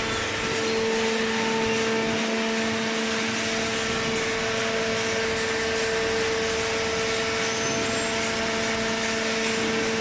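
Hydraulic cardboard baler's power pack, its electric motor and pump, running steadily: a constant hum with a held whine over a hiss.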